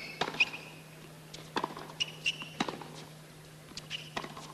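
Tennis rally on a hard court: racket strikes on the ball roughly a second apart, mixed with short high sneaker squeaks, over a low steady hum.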